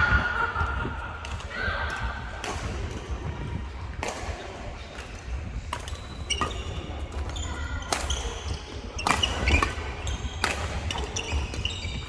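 Badminton rally: irregular sharp racket strikes on the shuttlecock and short high squeaks from court shoes on the floor.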